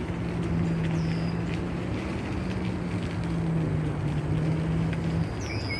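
Electric bike motor giving a steady low hum that cuts out about five seconds in, over a constant low rumble of wind and tyres on the gravel path. Two short bird chirps, one about a second in and one near the end.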